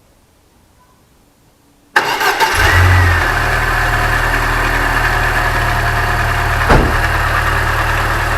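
Lada Niva's car engine comes in abruptly about two seconds in and then runs steadily at idle, with no timing-chain rattle audible.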